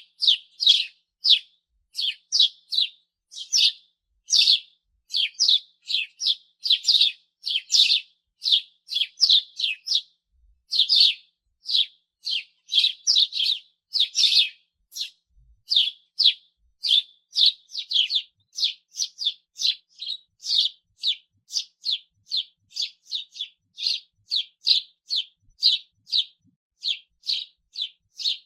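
House sparrow chirping: a steady series of short chirps, about two a second.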